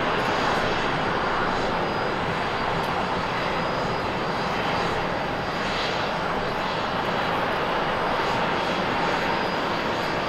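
Airbus A350-900 jet's Rolls-Royce Trent XWB turbofans running as the airliner rolls along the runway: a steady jet roar with a faint high whine.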